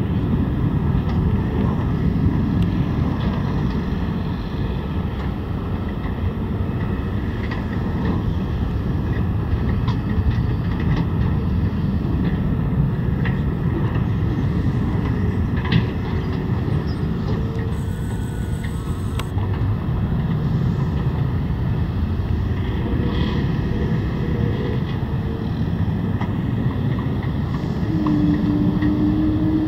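Jet engines of a Mitsubishi MRJ90 regional jet running as it moves on the runway: a steady low rumble. Near the end the sound swells and a tone appears and climbs slightly, the engines spooling up for the takeoff roll.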